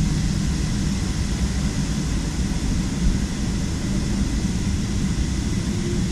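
Steady cabin noise of a jet airliner: an even rush of engine and air noise with a low hum.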